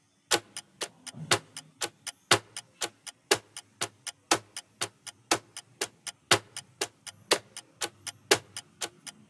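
Clock-ticking countdown timer sound effect: quick, even ticks about four a second, with a louder tick once every second, counting down the time to answer.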